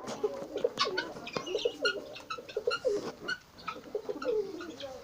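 Several pigeons cooing in a busy, overlapping stream of short calls.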